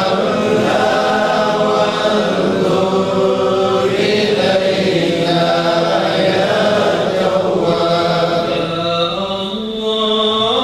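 Men's voices chanting together in an Islamic devotional chant, a continuous melodic recitation on long held notes.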